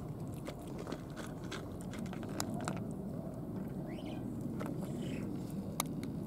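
Domestic cat eating canned wet food from a plastic dish: many small irregular chewing and licking clicks over a steady low background rumble.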